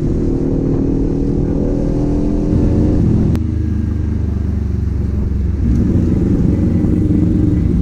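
Kawasaki Z400's parallel-twin engine and exhaust running under way. The note changes about three and a half seconds in, with a sharp click at that moment, and changes again near six seconds.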